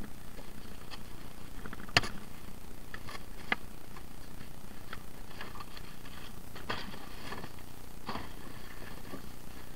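Scattered clicks and knocks of rubbish being handled and rummaged through, with one sharper knock about two seconds in, over a steady background noise.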